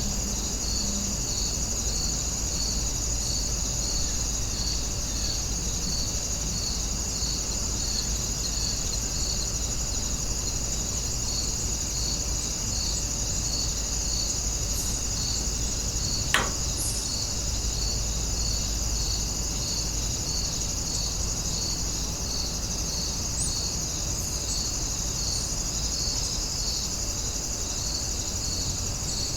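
Outdoor insect chorus of crickets: a steady high-pitched drone with a regular chirp repeating about every 0.7 seconds. A single sharp click sounds about halfway through.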